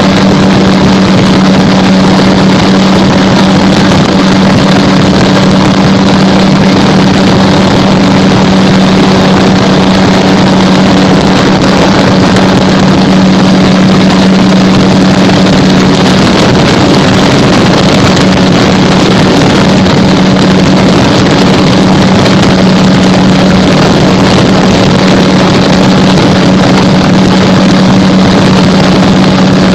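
Gyrocopter engine and propeller droning steadily in flight, with heavy wind rush over the microphone; the engine note wavers briefly about halfway through.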